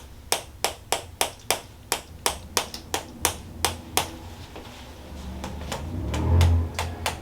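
Toksen wooden mallet tapping a wooden wedge on a patient's shoulder and upper back, about three sharp knocks a second, to loosen the shoulder muscles. The tapping stops about four seconds in, and a louder, low muffled sound follows near the end.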